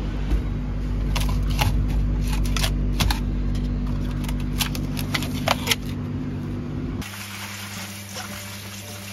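Steady low hum of a supermarket's refrigerated display cases, with scattered light clicks of plastic food trays being handled. About seven seconds in it cuts to a kitchen tap running over bean sprouts in a stainless-steel colander.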